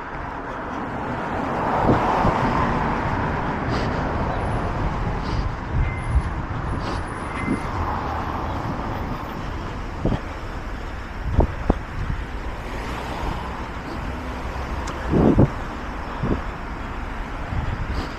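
Road traffic: cars passing one after another, each swelling and fading, with a few dull thumps in the second half.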